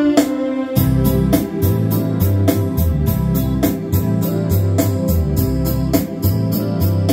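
Keyboard accompaniment with organ-like chords; a steady drum beat comes in about a second in.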